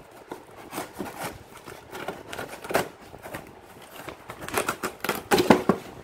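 A folding knife slitting the packing tape along a cardboard shipping box in a series of short crackling rasps, with the loudest rasps near the end as a flap is pulled open.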